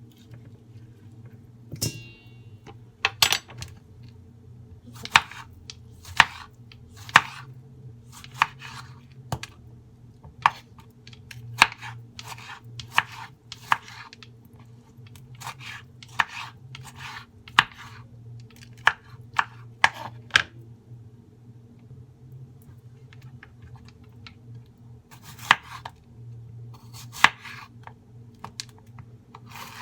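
Kitchen knife chopping on a cutting board: single sharp chops, roughly one a second, pausing for a few seconds before a few more near the end.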